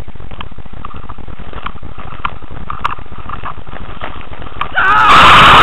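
Low, steady rumbling noise from a cheap action-camera microphone, with faint irregular ticks. Near the end it is cut into by a sudden loud, distorted rush of sound.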